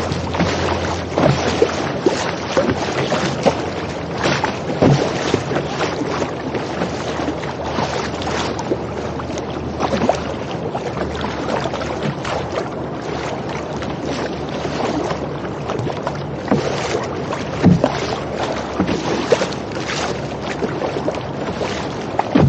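Rough, wind-against-current chop rushing and splashing along the hull of a Turning Point Boatworks Petrel Play sea kayak, with irregular sharp slaps of water on the bow, and wind buffeting the microphone.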